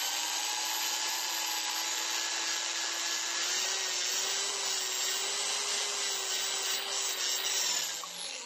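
Cylinder-head valves being ground into their seats with grinding compound by a small power tool: a steady motor whine over a gritty grinding, rising a little in pitch about three and a half seconds in and stopping near the end.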